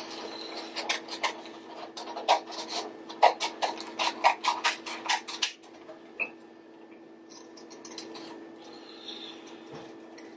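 Scissors snipping through a folded sheet of paper: a quick run of crisp snips, about four a second, then slower, fainter snips from about halfway as the cut curves round an oval.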